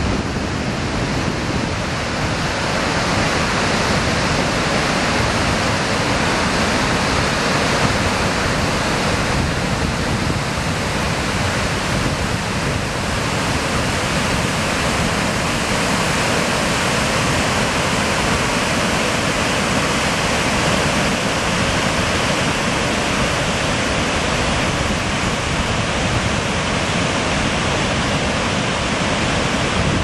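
Whitewater of the Chelan River falls rushing steadily and loudly through the rapids.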